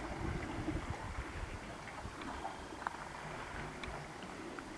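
Wind rumbling on the microphone, with faint scattered clicks and small sloshes of calm sea water lapping against shoreline rocks.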